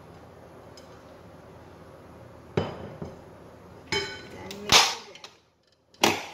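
Kitchen handling knocks: a glass bowl knocked twice against a stainless steel stand-mixer bowl, then set down with a ringing clink near the middle, followed by loud clunks as the mixer's plastic pouring shield is fitted into place.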